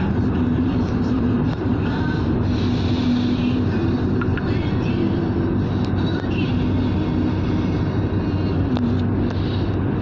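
Steady engine and tyre road noise inside a Hyundai car cruising at expressway speed, with a constant low hum.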